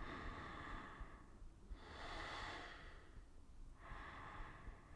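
A person breathing slowly and deeply during a held yoga posture, faint. Three long breaths of about a second and a half each, with short pauses between them.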